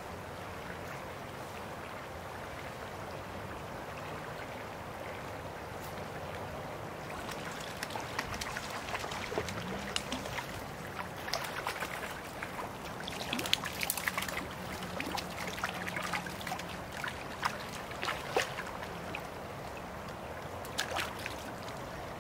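Creek water running steadily over riffles. From about a third of the way in until near the end, a hooked trout splashes and thrashes at the surface again and again, in sharp irregular bursts.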